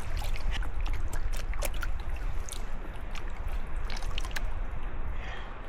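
Water splashing and trickling, with many short sharp clicks scattered through it, over a steady rumble of wind on the microphone.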